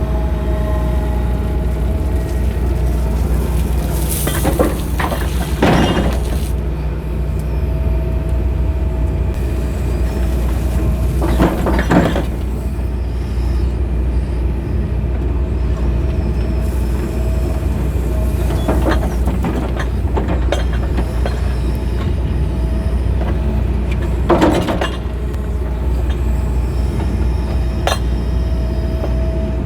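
John Deere excavator running with a steady low drone, broken by several sharp clanks and scrapes of the digging bucket, the loudest about 12 and 24 seconds in.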